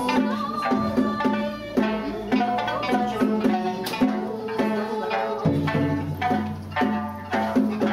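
Okinawan folk music: several sanshin, the three-stringed Okinawan lute, plucked together over the regular strokes of a small taiko drum. A deeper low note comes in about five and a half seconds in.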